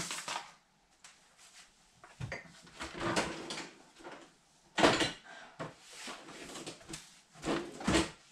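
Ingredients being set out on a kitchen counter: a series of separate knocks and rustles as cartons and a paper packet are put down, a cupboard door opening and closing, and a glass jar being handled near the end.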